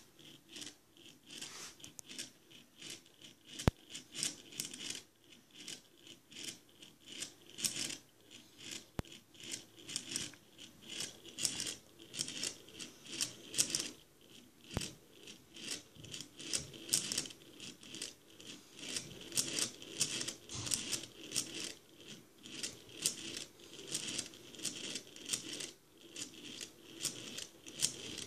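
Metal balls rolling and clacking against each other and the glass inside a small test-tube Stirling engine as the tube rocks back and forth, giving a steady run of clicks and short rattles.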